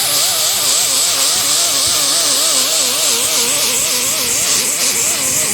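A hand-held power tool spinning a paint-stripping disc against a steel car fender, grinding off layers of old paint and primer. The motor's whine wavers up and down in pitch a few times a second as the disc is worked back and forth, over a steady gritty hiss.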